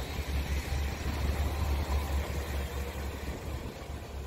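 Diesel railcar engine running as the train moves past, a steady low rumble.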